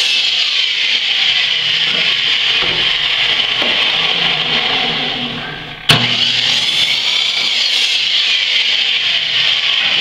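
Electric sliding miter saw running at full speed, its blade cutting through pine board. About four seconds in the motor winds down for a moment, then it is switched on again with a click about six seconds in and runs loud again.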